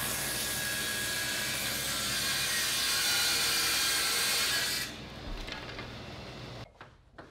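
A 10-inch, 2 HP table saw rip-cutting the tongue and groove off a spruce 2x6: a loud, steady blade-in-wood whine and hiss for about five seconds. Then the cut ends and the blade spins free, much quieter, and the sound drops away almost to nothing near the end.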